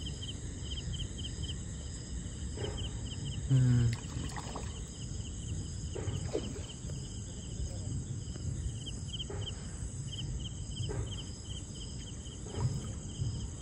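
Night insects, crickets among them, chirping steadily: runs of short, quickly repeated chirps over a constant high-pitched buzz.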